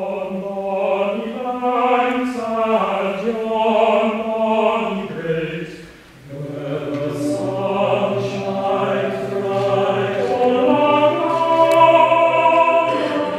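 A choir singing slow, sustained phrases. The singing fades briefly about six seconds in, then resumes.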